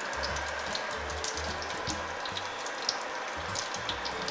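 Pineapple-and-shrimp rolls deep-frying in a wok of hot oil: a steady sizzle dotted with small crackles and pops.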